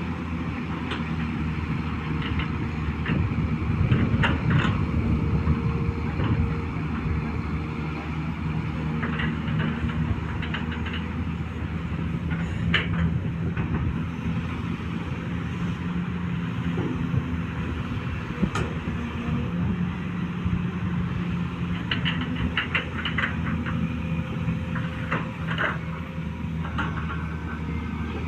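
Long-boom excavator's diesel engine running steadily, with scattered metallic clanks and rattles, a cluster of them near the end.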